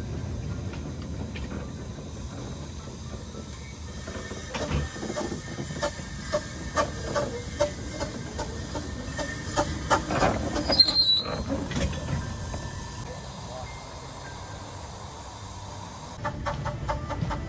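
Small narrow-gauge steam locomotive rolling slowly with its carriages, wheels clicking and knocking over rail joints and points, the clatter growing louder toward the middle. A brief high squeal about two-thirds of the way through.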